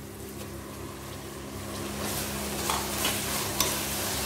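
Onion-tomato masala sizzling in an aluminium pressure cooker, with fresh mint and coriander leaves just added. From about two seconds in, a spatula stirs the mix and scrapes against the pot several times, and the sizzle grows louder.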